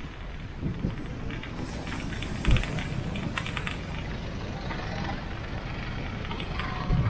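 Riding noise of a bicycle on a village street: a steady low rumble from the tyres and the air moving past, with a run of small clicks and rattles and a single sharp knock about two and a half seconds in.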